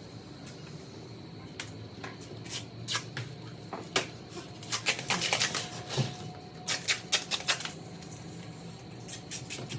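A run of irregular sharp clicks and taps, coming thickest in quick clusters through the middle few seconds, over a steady low background noise.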